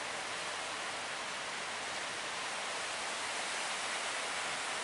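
Steady hiss of surf and breaking waves.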